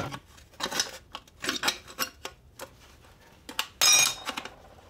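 Hand snips cutting thin sheet metal, a series of short crunching snips. About four seconds in comes a brief, louder metallic clatter with some ringing as cut pieces of metal land on the bench.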